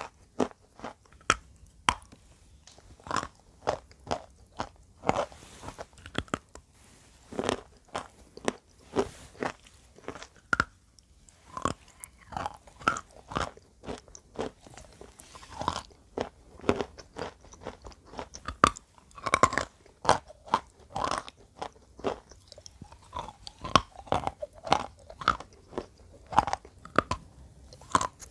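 Close-miked crunching and chewing of wet pressed chalk: sharp, irregular crunches several times a second.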